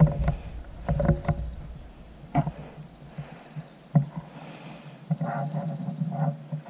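Handling noise from a scoped gun being shifted and aimed: scattered sharp knocks and low rumbling rubs, with a run of short scraping sounds near the end.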